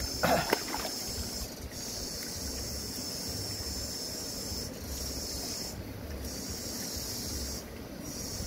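A short, loud slurp about half a second in, as a cooked snail is sucked from its shell, over a steady high hiss that drops out briefly a few times.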